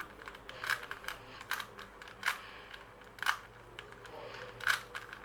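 Rubik's cube layers being twisted to scramble it, giving irregular plastic clacks about every half second to a second.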